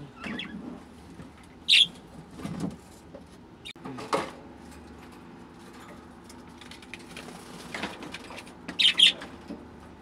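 Rustling and knocks of a wire bird cage and its plastic tray being moved and cleaned, with a few short, high chirps from the caged birds.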